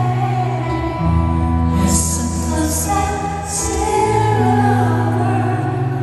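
A woman singing a slow song live with a band, with long held bass notes under her voice, heard through a concert PA.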